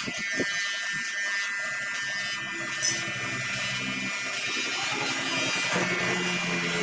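Corded electric hair clippers buzzing steadily as they cut the hair at the side of a man's head.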